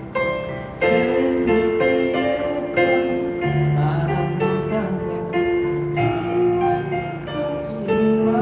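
Acoustic guitar playing a slow instrumental passage of a Mandarin pop ballad, plucked notes under a sustained melody line, with no sung words.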